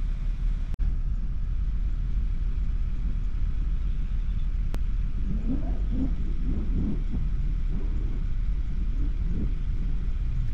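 2012 Jeep Wrangler JK's 3.6-litre V6 idling steadily while it warms up, a low rumble heard from inside the cab.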